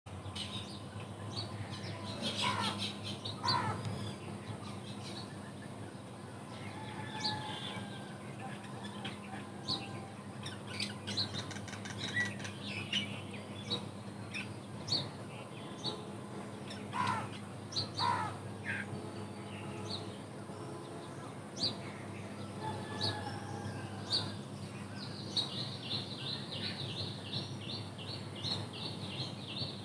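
Birds chirping and calling at intervals, with a few falling whistled notes and a fast trill of repeated notes near the end, over a steady low hum.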